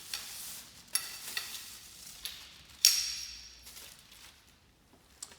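Handling noise from a retractable banner stand's sectional metal assembly pole, with scattered clinks and rattles as it comes out of its bag. One sharp metallic clink about three seconds in is the loudest, ringing briefly.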